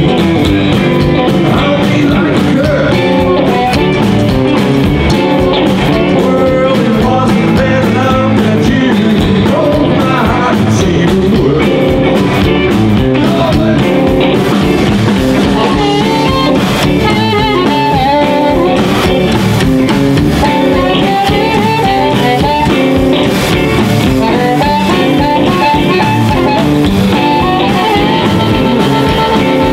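Live blues band playing: electric guitars, upright bass and drums, with a vocal in the first half. Near the end a harmonica is played into a microphone over the band.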